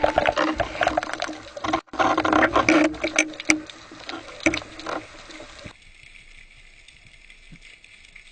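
Underwater sound through a camera housing. Dense crackling and clicking with a low hum lasts about five and a half seconds, then gives way to a faint steady hiss.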